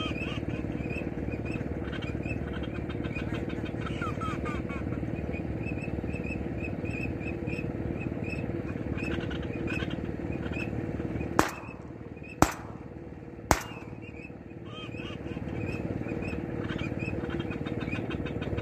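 Three shotgun shots about a second apart, sharp and loud, partway through, over a steady background hiss and many short bird calls.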